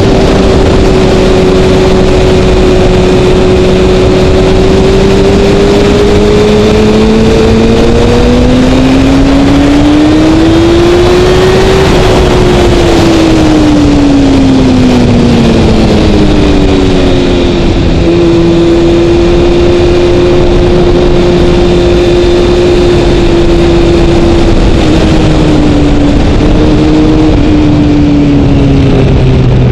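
2012 Kawasaki ZX-6R's 599 cc inline-four sport-bike engine on track under a steady rush of wind noise. Its pitch climbs under hard acceleration about a third of the way in, falls back as the bike slows, holds steady, then dips again and drops low near the end as it slows for a corner.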